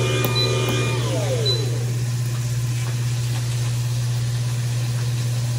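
Electric vertical juicer's motor running with a steady low hum while it is still juicing.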